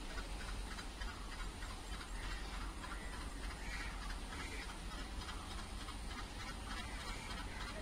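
Twin WDM3D diesel locomotives with ALCO 16-cylinder engines running at a distance as they haul a coal goods train slowly forward: a steady low rumble with a clattery edge. A few faint, short higher sounds come about midway.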